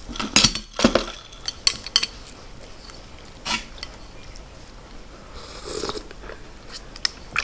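Plastic utensils clicking and scraping against a large glass bowl as pho noodles and broth are stirred, the knocks coming most densely in the first second. A slurp of broth from a spoon follows just before six seconds in.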